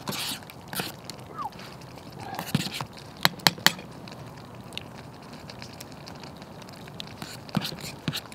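A metal spoon stirring and scraping in a metal camping pot over a crackling campfire, with three sharp taps about three and a half seconds in.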